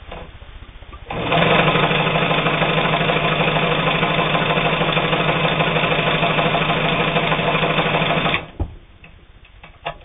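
Brother 1112A steel-geared sewing machine running steadily while sewing a wide, close zigzag stitch. It starts about a second in and stops suddenly after about seven seconds, followed by a couple of short clicks.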